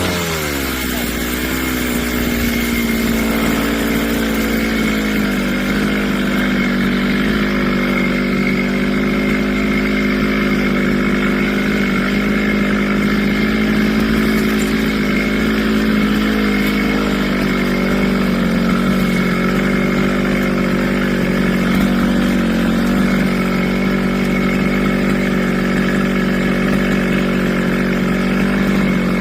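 Brush cutter engine dropping quickly from high cutting revs in the first second, then running steadily at a lower speed, its pitch settling slightly over the next few seconds; no blade striking wood.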